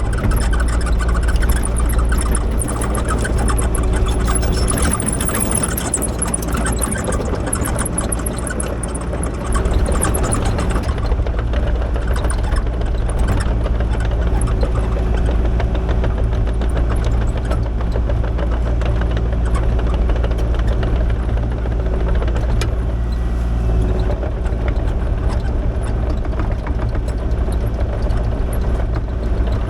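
Diesel engine of a Kubota KX040 mini excavator running steadily under work, with clattering and rattling through roughly the first ten seconds, then settling into a steady hum.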